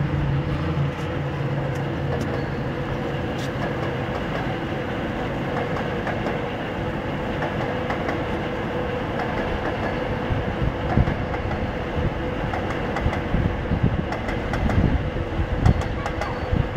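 Steady mechanical rumble with a constant hum, with some low, uneven thumps in the last few seconds.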